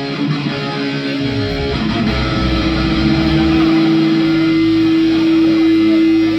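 Electric guitar and bass noodling loosely, then an electric guitar holding one long sustained note from about two seconds in.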